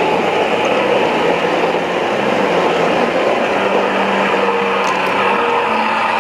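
G-scale model passenger train rolling past on its track: a steady whir and rumble of wheels and motors.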